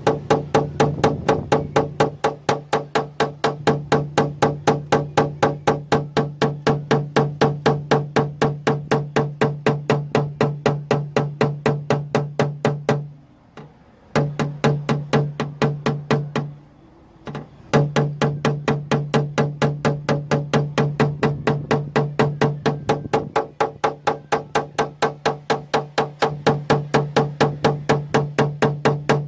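Paintless dent repair tapping: a hammer and knockdown tool striking the car door's sheet metal in a quick, even train of about three taps a second, the panel ringing between taps. The tapping stops twice briefly in the middle.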